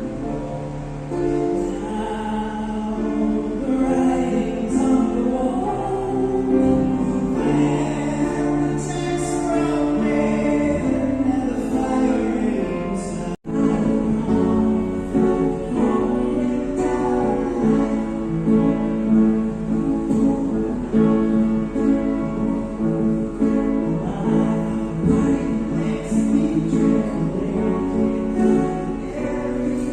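A song with singing and instruments. The sound cuts out for an instant about thirteen seconds in.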